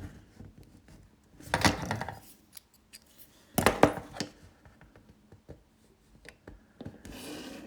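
Handling and measuring a solid brass mechanical pencil: short metallic scrapes and clicks, the two loudest about a second and a half and three and a half seconds in, with a brief hiss-like scrape near the end.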